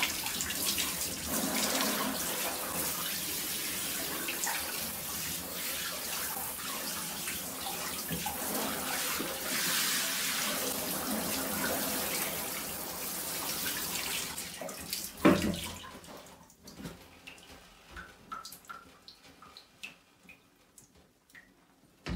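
Water running and splashing steadily onto a wet tiled surface around a plastic toy, stopping about fifteen seconds in with a single sharp thump. Afterwards only faint scattered drips and small ticks remain.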